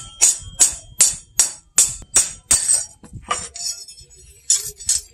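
Hand hammer striking a knife blade on a steel post anvil, about eight ringing metal-on-metal blows at an even pace of about two and a half a second, then a few lighter clinks near the end.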